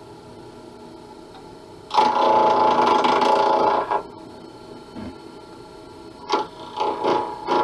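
SIP 01936 lathe running with a steady hum while a turning tool cuts a spinning acrylic pen blank: a loud cutting scrape for about two seconds, then, after a pause, short broken cuts near the end.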